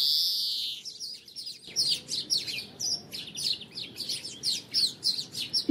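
European greenfinch singing: a long drawn-out buzzy note at the start, then after a short pause a fast twittering run of sharp chirps and trills.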